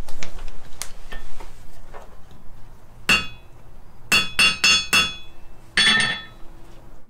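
Blacksmith's hammer striking a small forged steel coat hook on an anvil, each blow ringing: one strike about three seconds in, a quick run of four, then one more near the end. The blows knock down a burr left on the finished hook.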